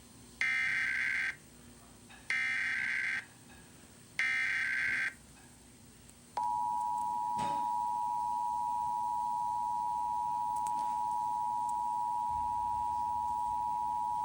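Emergency Alert System header and attention signal: three short bursts of buzzing data tones, each just under a second, followed after about a second's pause by the steady two-tone attention signal, which holds for about eight seconds. These tones announce an emergency alert, here a coordinated test.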